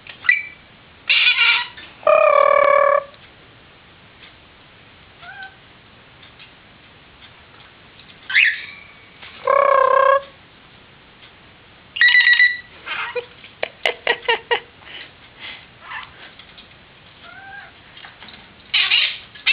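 Pet parrot calling in short chirps and squawks, with two longer warbling tones like a cell-phone ring mimicked by the bird, and a quick run of clicks and chirps about halfway through.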